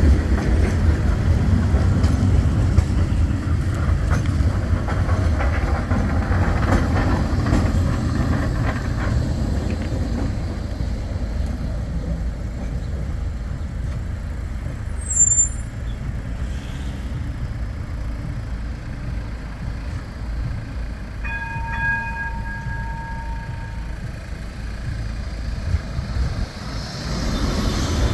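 Bombardier Flexity 2 trams running past on street track: the low rumble of a passing tram fades over the first ten seconds, and another tram's rumble builds again near the end. In the quieter middle there is a brief high chirp, and later a steady tone lasting about three seconds.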